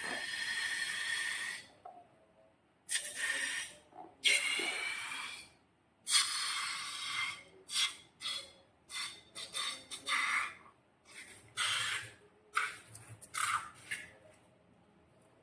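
Handling slime and transparent balloons: a run of hissing, squelching bursts with faint squeaky streaks, three longer ones of over a second each followed by about a dozen shorter, quicker ones.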